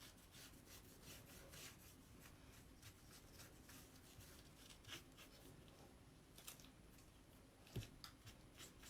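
Faint rubbing and scraping of a cloth wiping stain on a reverse canvas, in short repeated strokes, with a soft knock near the end.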